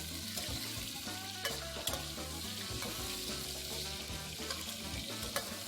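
Chopped duck frame, dusted with dry starch, deep-frying in hot peanut oil: a steady sizzle with a few sharp clicks.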